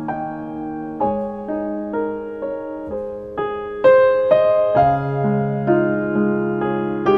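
Background music: a gentle piano melody with chords, played one note at a time.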